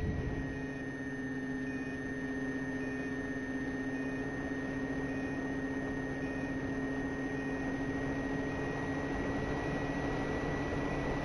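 RC model airplane's motor and propeller droning at steady speed, heard from a camera on board the plane, with air rushing past. The pitch drops slightly just after the start, then holds.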